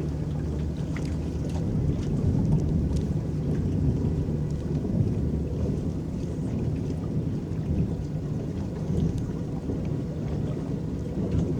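Electric boat running steadily across the water, a low hum under the wash and splash of water along the hull, with small scattered drips and splashes.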